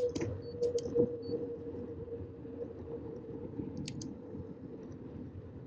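Riding noise from a mountain bike tandem rolling on pavement in a pack of riders: a steady hum over a rushing rumble, with a few sharp clicks, loudest in the first second or so.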